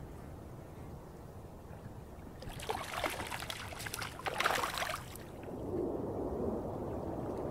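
A carp splashing and thrashing at the water's surface for about two and a half seconds, followed by a softer, lower rushing noise.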